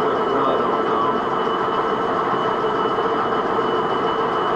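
Metalworking machine tool running steadily under power feed at a raised feed rate, taking a cut in metal, with a constant high-pitched whine over its running noise.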